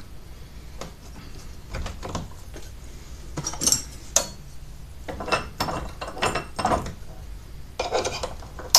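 Screwdriver prying and scraping at an LED bulb clamped in a bench vise, trying to break its base off: scattered clicks, scrapes and knocks, with the sharpest knock near the end.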